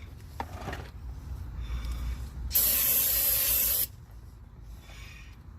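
One burst of aerosol brake cleaner sprayed onto a brake rotor, an even hiss lasting about a second, starting about halfway in.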